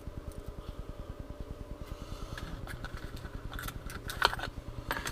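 Light clicks and rattles of fishing lures and hooks being handled, over a steady low pulsing hum. The clicks start about halfway through and are loudest near the end.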